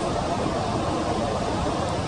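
Steady rushing noise at an even level, with no distinct bird calls or other events.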